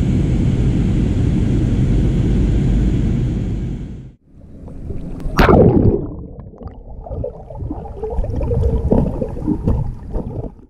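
Steady roar of airliner cabin noise in flight, which cuts off abruptly about four seconds in. It gives way to underwater gurgling of a scuba diver's exhaled bubbles, with one loud rushing burst about five and a half seconds in.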